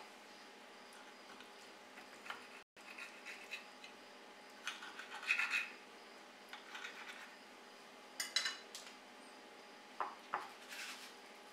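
Knife cutting through a baked eggplant moussaka tart and scraping against the serving plate, in a few short, spread-out strokes. Near the end a cake server slides under the cut slice.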